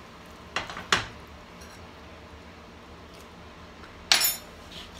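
Metal cookware clinking at the stove: two quick knocks about half a second in, then a louder clatter a little after four seconds.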